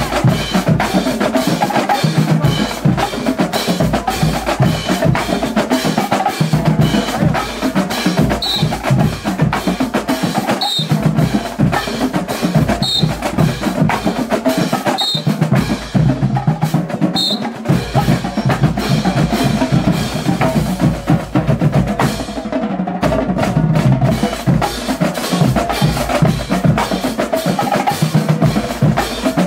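Marching band drumline playing a continuous cadence: snare drums, a row of bass drums and cymbals beating rapidly without a break.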